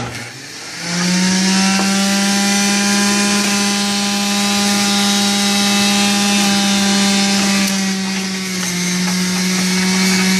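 Omega MegaMouth centrifugal pulp-ejection juicer switched on, its motor running up to speed over about a second and then holding a loud, steady hum. The sound changes slightly about eight and a half seconds in.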